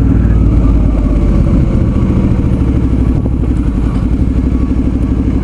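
Suzuki V-Strom 650's V-twin engine running steadily under way, with a fast, even pulse.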